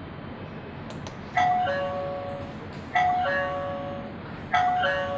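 Wi-Fi video doorbell chime ringing: a two-note ding-dong, a higher note falling to a lower one, sounding three times about a second and a half apart.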